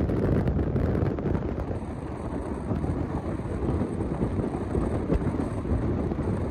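Steady low rumble of a jet airliner's engines, with a faint high hiss joining about a second and a half in.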